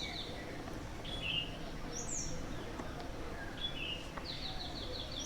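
Small birds chirping in the background: short high chirps, some falling in pitch, and about four seconds in a quick run of repeated high notes.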